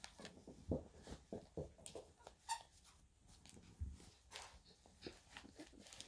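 Blue-and-gold macaw lying on its back being tickled, making faint, scattered short squeaks and grunts amid the rustle of feathers and clothing.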